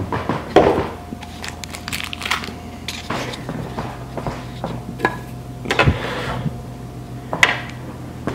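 Handling noise: scattered knocks, clicks and rustles as the plastic AcuRite weather-station sensor unit is picked up off the kitchen counter and carried, with footsteps, over a faint steady hum.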